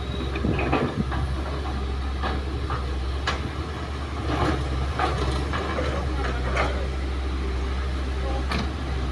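Hydraulic excavator's diesel engine running steadily under load, with irregular clanks and thuds as dirt and rocks are dropped into a steel dump-truck bed.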